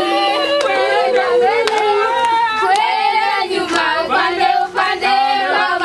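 A group of children and teenagers singing together, with hand claps through the song.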